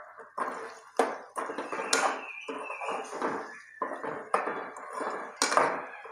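A spoon stirring and scraping taro root pieces around a metal pan, knocking sharply against the pan several times, the loudest knocks about a second in, about two seconds in, and near the end.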